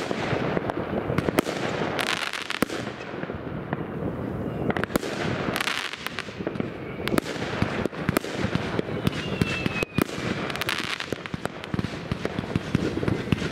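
Fireworks going off without pause: a dense jumble of bangs, pops and crackling from many launches, with a short falling whistle about nine seconds in.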